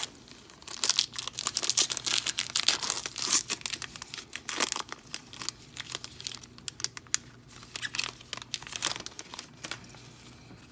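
Foil-lined Topps baseball card pack wrapper being torn open and peeled back by gloved hands: a run of sharp crinkling rips starting about a second in, densest over the next few seconds, then sparser near the end.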